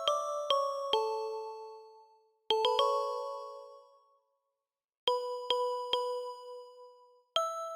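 Music: a home-produced song playing short phrases of struck, ringing notes that fade out, with brief silences between the phrases.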